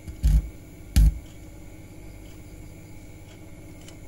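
Two short, loud bursts of low mains-hum buzz about a second apart near the start, from an active speaker as fingers touch its RCA input plug, with a faint steady hum from the speaker between them.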